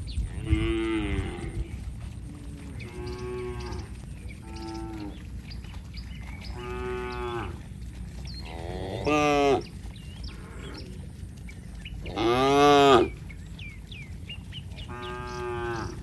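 Cattle mooing repeatedly: about seven separate calls, the two loudest and longest about nine and twelve seconds in.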